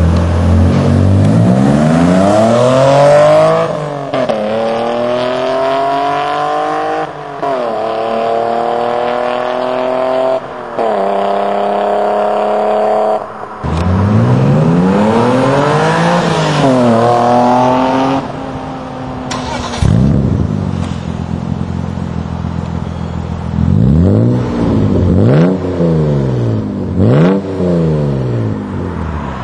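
BMW Z3 M Roadster's straight-six with a Meisterschaft GT aftermarket exhaust, accelerating through the gears: the pitch climbs and drops back at three upshifts. Later the revs rise and fall, then the engine settles to an idle with a few quick throttle blips near the end.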